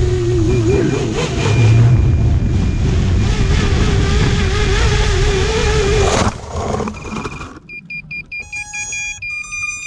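A quadcopter's motors whine over a loud rush of air noise, the whine wavering in pitch. About six seconds in it cuts off as the drone comes down in the grass, and it is followed by a rapid run of short electronic beeps from the drone's beeper.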